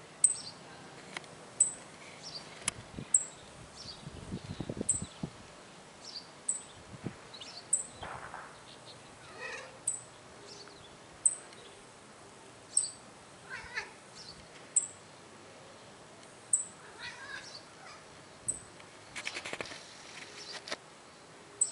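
A bird calling repeatedly with short, very high chirps about every second and a half. A tabby cat answers with a few quieter, lower chirping calls while it watches the bird. Near the end there is a brief rustle.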